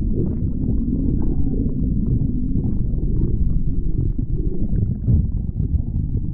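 Stomach growling: a continuous low, gurgling rumble with faint small crackles over it.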